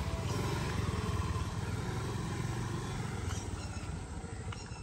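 Motor scooter engine running as the scooter rides off down a dirt track, a steady low putter that slowly fades toward the end.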